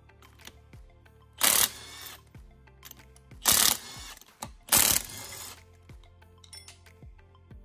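A power tool on a long socket extension runs in three short bursts, about a second and a half, three and a half and just under five seconds in, loosening the ring gear bolts on a differential carrier. Faint background music plays underneath.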